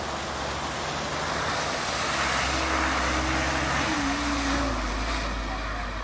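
Suzuki Jimny's 1.5-litre four-cylinder petrol engine running under load as it wades through a shallow river, with water splashing and rushing around the tyres. It grows louder as the vehicle comes closest, a couple of seconds in, then eases off.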